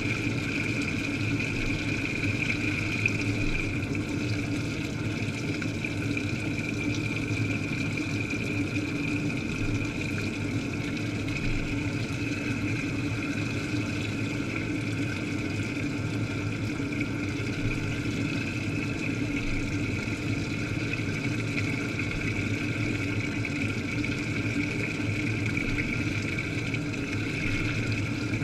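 Washing machine running through its wash cycle, heard from a camera submerged in the wash water among the clothes: a steady hum with a high whine over it.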